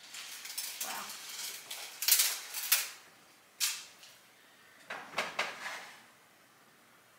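Cooking utensils and cookware clinking and scraping at the stove, in a few separate bursts.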